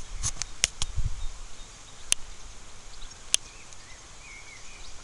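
Faint outdoor ambience with short, faint bird chirps in the second half. Several sharp clicks come through it, a quick run in the first second and then two more, about two and three seconds in, and there is a brief low rumble about a second in.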